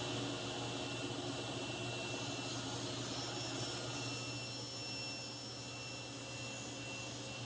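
SawStop Professional Cabinet Saw running steadily with a low hum and a high whine as a hardwood lid is fed on edge over the blade, cutting a rabbet along its edge.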